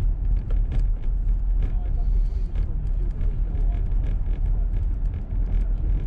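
Steady low rumble of a car's engine and road noise heard from inside the cabin while driving, with scattered light ticks.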